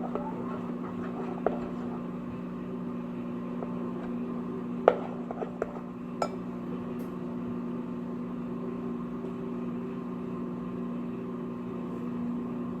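A steady low electrical hum with a few light clicks and clinks from handling a glitter container while glitter is added to a slime mix, the sharpest about five seconds in.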